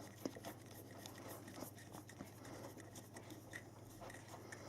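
Faint small clicks and rubbing as the screws of a gimbal's camera clamp are tightened to hold the camera, over a low steady hum.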